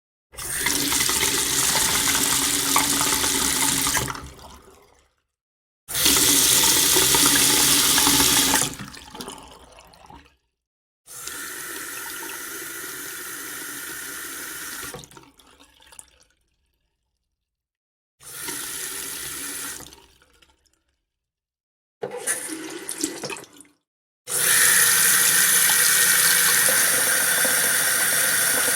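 A series of separate recordings of running and pouring water, six in a row, each lasting a few seconds and ending in silence. Most tail off as the flow stops, and the last, steady stream begins near the end.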